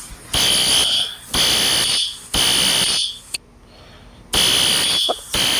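Building fire alarm sounding a harsh buzzing tone in the three-pulse evacuation pattern: three pulses about a second apart, a pause, then the pattern begins again. A smoke detector set the alarm off.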